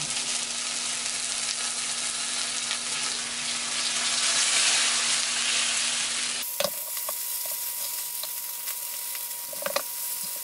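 Almond-flour-crusted haddock fillets sizzling in coconut oil in a skillet, a steady frying hiss that swells about halfway through. A few light clicks in the second half as a spatula touches the pan.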